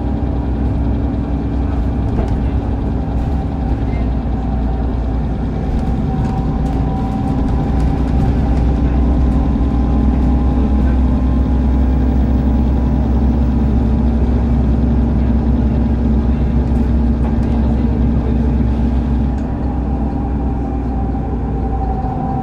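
Mercedes-Benz Citaro city bus's compressed-natural-gas engine and ZF Ecomat automatic gearbox heard from inside the moving bus, a steady low drone with a higher gear whine. It grows louder about a third of the way in as the bus pulls harder, holds, then eases off near the end with the tones falling.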